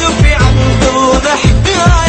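Arabic pop song with a strong steady beat and a singing voice wavering in pitch.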